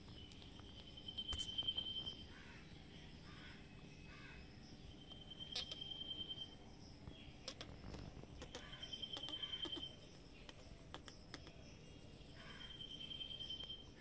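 A high, even-pitched trilling call, four times, each about a second long and a few seconds apart, over a faint outdoor background with a few light ticks.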